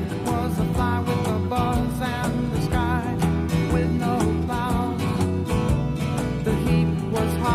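Background music: a country-style song with guitar and a wavering melody line.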